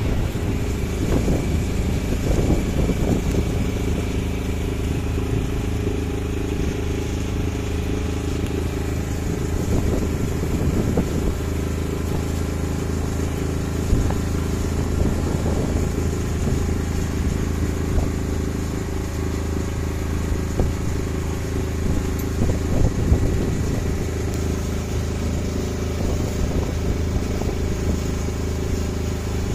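A boat's engine running at a steady speed, a low even drone with no change in pitch.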